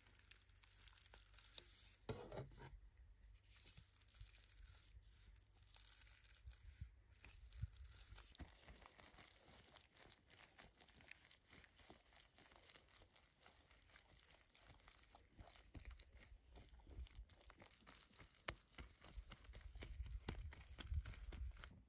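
Faint sticky, crackling smear of garlic paste being worked over raw steak, first scraped on with a knife blade, then from about eight seconds in dabbed and spread with a basting brush in a dense run of small wet clicks.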